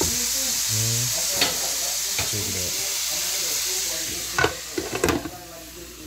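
Ground sausage sizzling in an electric griddle multi-cooker, with a few sharp clicks. A clatter comes about four and a half seconds in as the glass lid is set on, and the sizzle then turns much quieter.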